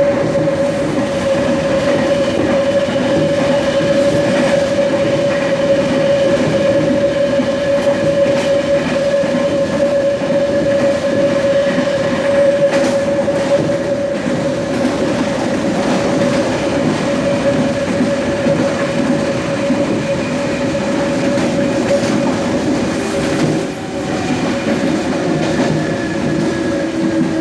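Traction motors of a Hitachi-built Series 100 electric multiple unit running loud under way, heard from on board: a steady whine over rolling rumble with occasional wheel clicks on the rails. Near the end a second tone comes in and shifts in pitch.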